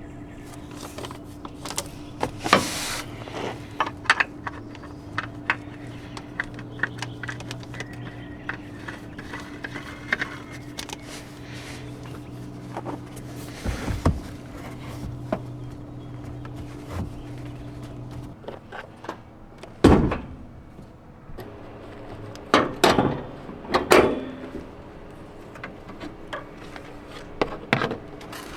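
Hands-on work on a car: scattered clicks, knocks and several louder clunks of tools and parts being handled, over a steady low hum that stops about two-thirds of the way through.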